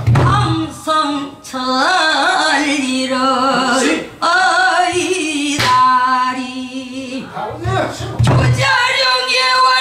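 Female pansori singer of the Boseong school singing a long sung passage (sori), drawing out held notes that bend and waver in pitch with heavy vibrato. A few sharp knocks fall between her phrases.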